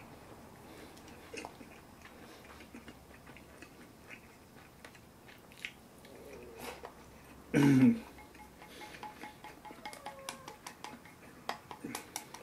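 Quiet eating sounds: wooden chopsticks clicking against a ceramic rice bowl while rice is eaten, the clicks coming quicker near the end. One short, louder sound stands out about two-thirds of the way through.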